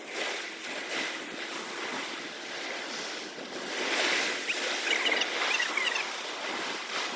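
Sea water washing and splashing in rough conditions, an even rushing noise that swells about four seconds in, with a few short high chirps around five seconds in.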